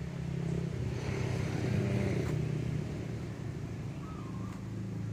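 A motor vehicle engine running steadily, swelling a little about a second or two in.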